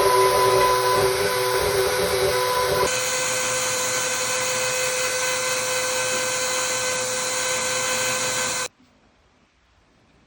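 Electric power tool running with a steady high whine, its tone shifting about three seconds in, then stopping abruptly near the end, leaving near silence.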